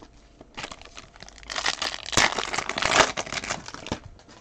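A trading-card pack wrapper crinkling as it is handled and opened, louder through the middle and stopping shortly before the end.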